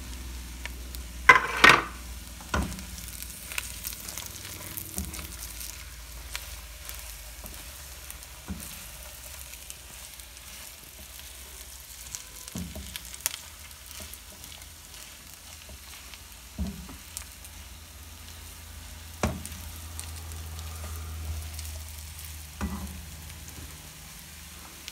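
Silicone spatula stirring and scraping semolina-and-jaggery halwa in a nonstick wok, with faint sizzling from the hot ghee and occasional knocks of the spatula on the pan. A brief loud clatter about a second in, and a steady low hum underneath.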